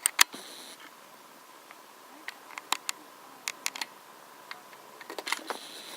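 Sharp clicks and taps of a handheld camera being handled, with a brief whir about half a second in.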